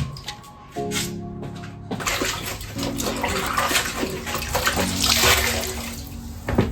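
Water running steadily from a tap, starting about two seconds in, over background music.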